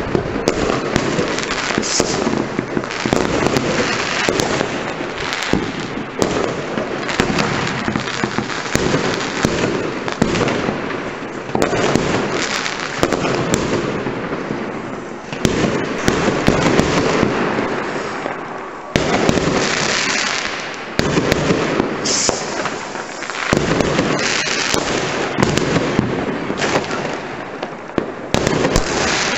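Many fireworks going off at once: a dense, near-unbroken barrage of bangs and crackling, with sharper cracks standing out here and there.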